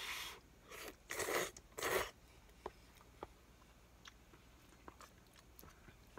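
A person slurping noodles from a bowl: four noisy slurps in the first two seconds, then quiet chewing with a few faint clicks.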